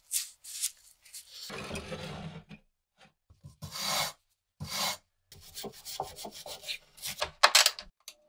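Rusty steel dagger blade scrubbed by hand with a wire brush: a series of separate rasping strokes with short gaps between them, one longer stretch of scrubbing about a second and a half in, and the loudest strokes near the end.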